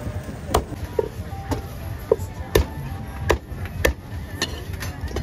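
Cleaver chopping food on a cutting board: a series of sharp chops at an uneven pace, about two a second.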